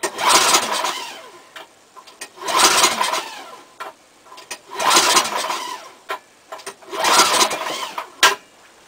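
Four pulls on the recoil starter of a 2001 Mastercraft 4x4 snowblower's 10.5 hp Tecumseh Snow King engine, one every two to two and a half seconds, each a burst of the engine turning over. The cold engine, on full choke and freshly primed, does not catch.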